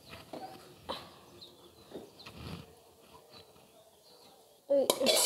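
Light knocks and handling of a metal wok and a plastic colander, then near the end a loud scraping, rustling burst as boiled rice is tipped from the wok into the colander to drain.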